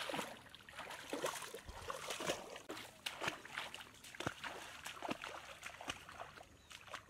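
Bare feet wading through shallow, weedy floodwater: a run of irregular splashing steps.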